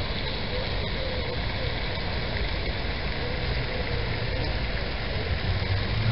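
Steady rushing and splashing of a pond fountain's jet falling back onto the water.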